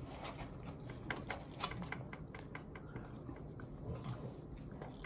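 Faint, irregular clicks and crackles of eating by hand: crisp pide crust being broken off and chewed.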